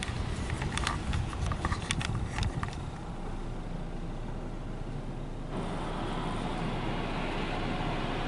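Belanger FreeStyler soft-touch car wash heard from inside the car: a patter of sharp ticks in the first couple of seconds, a quieter stretch, then a steady rushing noise that comes on suddenly about five and a half seconds in.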